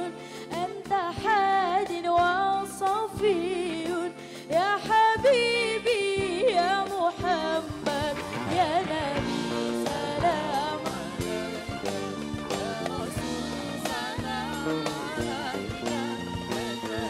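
A woman sings an Arabic sholawat with sliding, ornamented runs over a live band of keyboard, bass guitar, electric guitar and drums. Around eight seconds in, the voice becomes less prominent and the band fills out.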